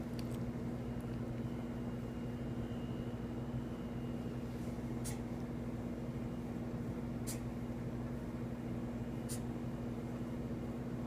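A steady mechanical hum, even and unchanging, with three faint clicks about two seconds apart in the middle of it.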